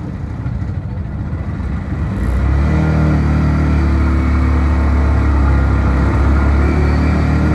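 Small engine of a Bajaj auto-rickshaw running while it is driven, heard from the driver's seat. About two seconds in the engine speeds up, then runs steadily and louder.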